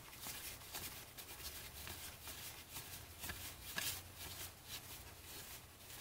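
Faint, irregular soft flicks and rustles of cardboard trading cards being handled and flipped through by hand, the loudest a little under four seconds in, over a low steady hum.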